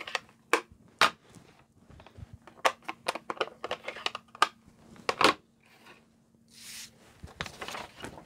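Plastic Stampin' Up! Classic ink pad cases being opened and set down on a craft mat: a series of sharp clicks and knocks, with a short sliding rasp a little after the middle.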